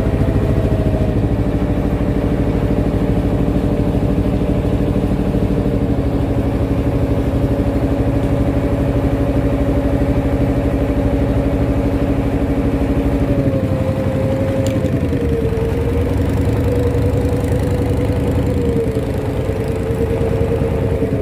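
Boat's inboard engine running steadily close by, its pitch stepping down a little in the last several seconds as it slows.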